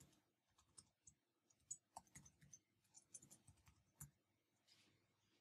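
Faint clicks of typing on a computer keyboard: about fifteen quick, irregular keystrokes, bunched in the middle, that stop about four seconds in.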